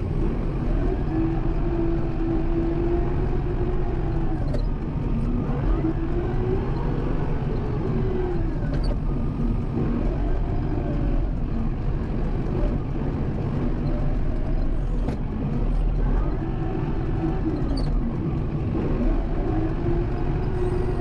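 Kubota M7060 tractor's four-cylinder diesel engine running under load while pushing snow, its revs rising and falling every few seconds. A few short sharp clicks are heard over it.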